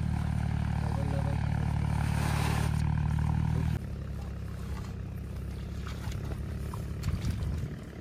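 Tractor diesel engine running steadily, a low even chug. About four seconds in it drops sharply in level and runs on more quietly.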